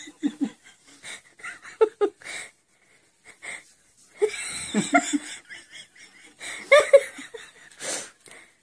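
A person laughing in several short outbursts, the loudest a little before the end.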